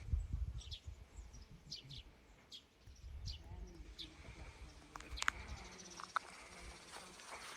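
Small birds chirping in short, quick calls, many in the first half and a few later, over a low rumble.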